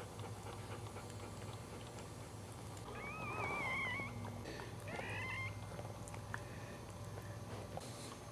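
Newborn Cairn Terrier puppy squealing twice, high thin cries that waver in pitch, the first about three seconds in and lasting about a second, the second shorter a second later. A steady low hum and faint small clicks run underneath.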